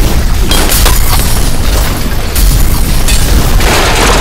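Film explosion sound effects: a loud, continuous low rumble of blasts with sharp cracks of debris scattered through it.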